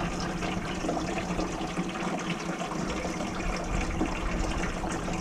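Water running steadily, with an even rush and splash.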